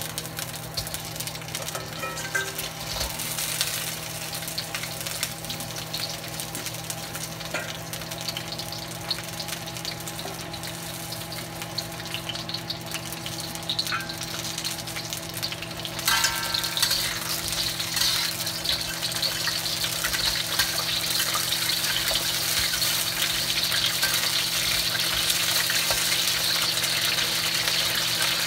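Whole blue crabs frying in hot oil in a wok: a continuous sizzle that gets louder a little past halfway, with a few small clicks and pops, over a steady low hum.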